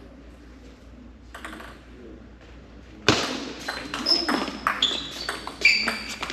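Table tennis rally: the celluloid ball clicking sharply off the rackets and table in quick succession, starting suddenly about three seconds in.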